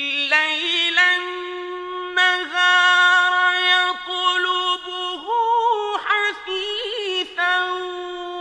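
Solo male voice chanting Quran recitation in the slow melodic mujawwad style, holding long ornamented notes with brief breaks between phrases.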